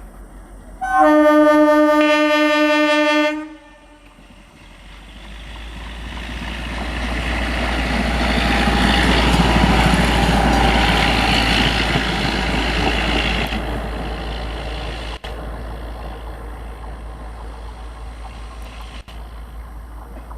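A 12-coach electric multiple unit (EMU) train sounds one steady horn blast of about two and a half seconds. Then the train passes, the rush of its wheels on the rails building to a loud peak and slowly fading away over a low rumble.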